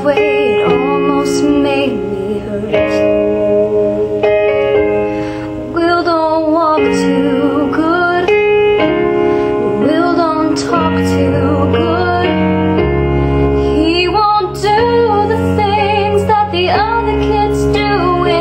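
A woman singing a slow ballad solo, with vibrato on held notes, over a piano backing track; deeper bass notes join about eleven seconds in.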